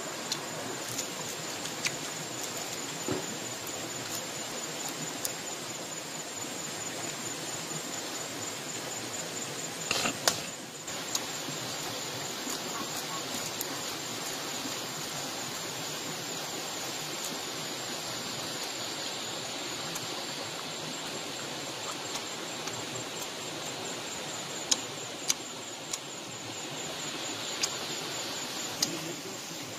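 Steady rushing of a stream with scattered sharp clicks and taps, and a brief louder clatter about ten seconds in.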